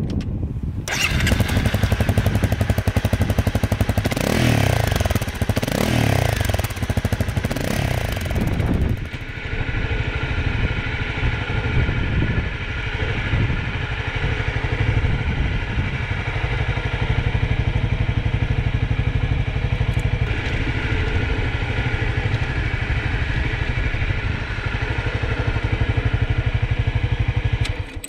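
Honda CRF250 Rally's single-cylinder four-stroke engine starting up about a second in and blipped a few times, then from about nine seconds running steadily while the bike is ridden.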